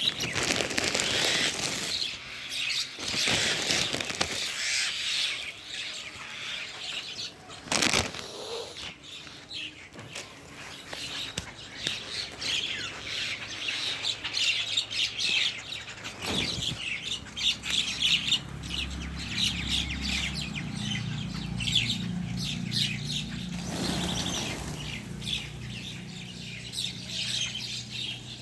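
Pet bird chirping and twittering rapidly and continuously, in quick high-pitched calls. A low steady hum joins about halfway through.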